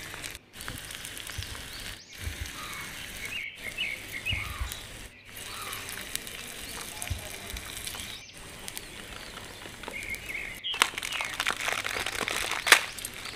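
Small birds chirping in the background, broken off briefly several times. Near the end, the crackling and crinkling of a plastic Maggi noodle packet being torn open, with one sharp loud crackle.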